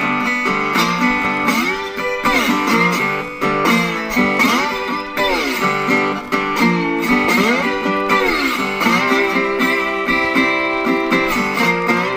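Delta blues slide guitar played on a National Tricone Style 1 resonator guitar. Notes slide up and down in repeated swooping arcs, then settle into steadier held notes for the last few seconds.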